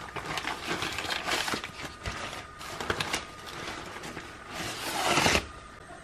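Brown paper grocery bags rustling and crinkling inside a cloth shopping bag as they are handled, in uneven bursts with a louder crinkle about five seconds in.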